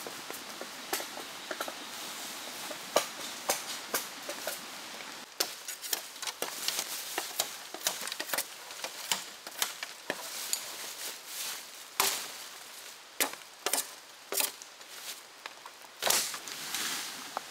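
Irregular light knocks and clicks, several each second with a few louder ones, over a faint steady hiss.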